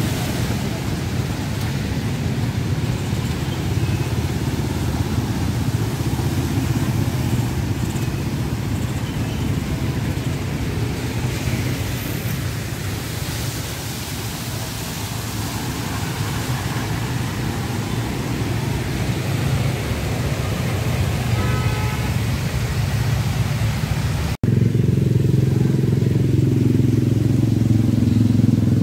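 Motorcycle engine running steadily with a low rumble, cutting out for an instant about 24 seconds in and coming back louder.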